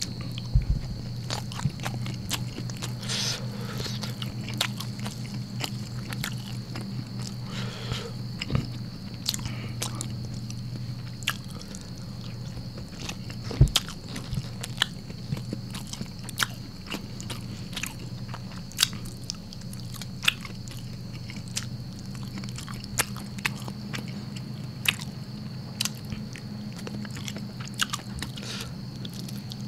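Close-miked chewing of a mouthful of rice, rendang and squid, with many scattered sharp mouth clicks and bites. A steady low hum and a faint high whine run underneath.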